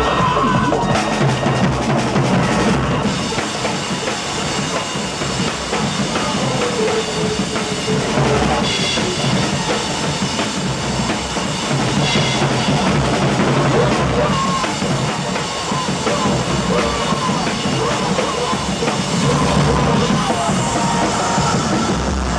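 Loud live band music led by a drum kit, with kick drum, snare and cymbals over a dense wash of other instruments.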